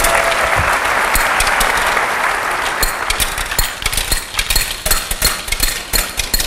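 An audience applauds for the first three seconds or so. It gives way to rapid, irregular metallic clicks: steel ball bearings are struck aside by a servo-driven rotary deflector stage and drop into collection bins in a high-speed sorting machine.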